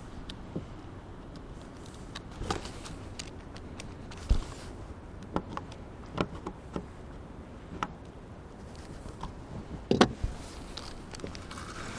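Scattered knocks and clicks of gear being handled in a wooden rowboat, over a steady rush of wind and water; the loudest are a deep knock about four seconds in and a sharp knock about ten seconds in.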